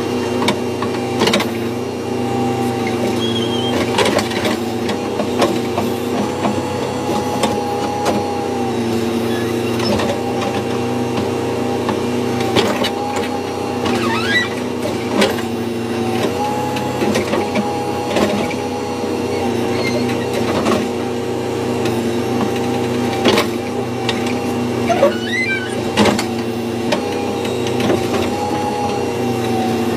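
Backhoe loader's diesel engine running, heard from inside the operator's cab; its pitch dips briefly and recovers several times as the digging arm and bucket work. Scattered knocks and clatter sound over it.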